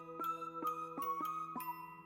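Background music: a steady held chord with a bright chiming melody of quick struck notes.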